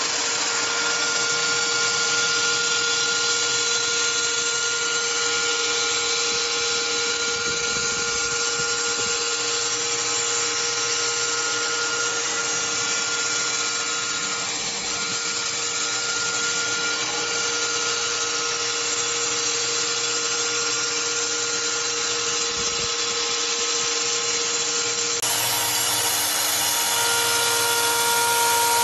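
CNC milling machine cutting a metal injection-mold cavity with a small end mill: a steady machining whine of several held tones over a continuous hiss of cutting. About 25 s in, the held tones change.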